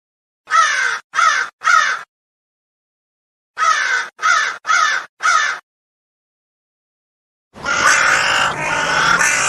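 Crow cawing: three caws in quick succession, then a pause and four more caws, then a longer, denser run of calling near the end. The gaps between the groups are dead silent.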